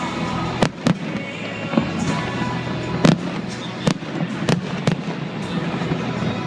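Fireworks shells bursting in the air: about half a dozen sharp bangs at uneven intervals, the loudest about three seconds in, over music playing throughout.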